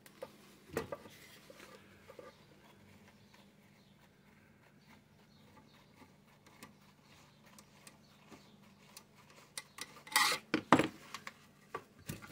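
Light clicks and scrapes of a screwdriver working the screws of a Johnson Model D fare box's motor housing, then, about ten seconds in, a short run of loud metallic clanks as the sheet-metal housing is worked apart.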